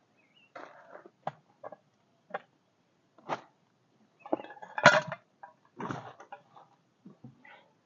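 Camping gear being unpacked from a bag and set down: a string of separate knocks, clinks and rustles, the loudest about five seconds in.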